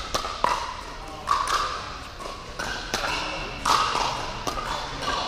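Pickleball paddles striking a hollow plastic ball: a string of sharp, ringing pops, roughly one every half second to second, with a reverberant tail.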